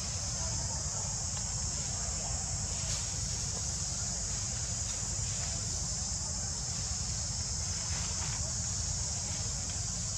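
Steady chorus of insects, a continuous high-pitched buzz that never breaks, over a low outdoor rumble.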